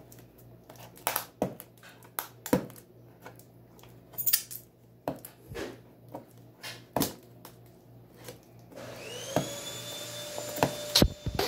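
Fingers scratching, tapping and picking at the tuck tab of a cardboard box in irregular clicks. About nine seconds in, a steady rushing noise starts, with a whistle that rises and then holds.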